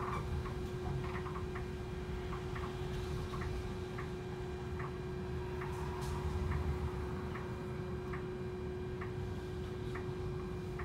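Turn indicator of a hydrogen fuel-cell double-decker bus ticking steadily, a little more than once a second. A steady electric hum and a low rumble from the bus run under it, heard from the upper deck.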